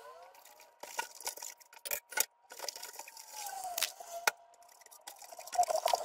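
A cloth rubbing and wiping a wet, glossy black computer-case side panel, with gliding squeaks as it drags over the surface, loudest near the end. In the middle, a trigger spray bottle spritzes cleaner onto the panel several times in short hisses.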